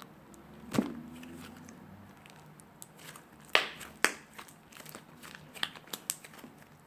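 Slime being squeezed and stretched by hand, with a thump near the start and then a series of sharp pops and small crackles, the loudest two a little over halfway through.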